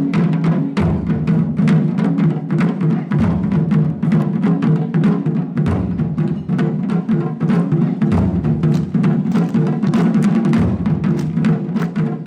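Japanese taiko ensemble drumming: several barrel-shaped taiko struck with wooden bachi in a fast, dense rhythm, with deep low drum strokes coming in stretches every few seconds.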